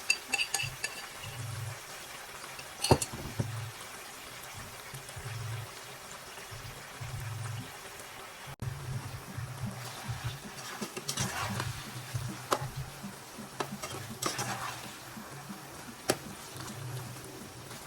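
Food being stirred and cooked in a pan, with scraping and a few sharp knocks of a utensil against the pan.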